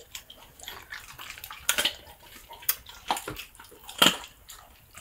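A dog eating rib scraps, with wet chewing and licking and a few sharp crunches, the loudest about four seconds in.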